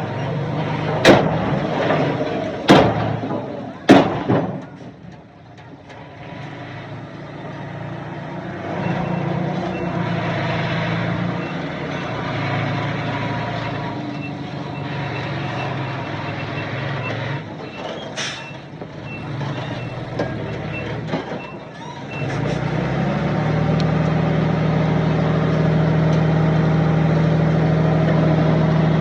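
Heavy diesel earthmoving machinery at work: three loud bangs in the first few seconds, then engines running with a faint, evenly repeating reversing beep. From about three-quarters of the way in, a louder, steady diesel engine note takes over.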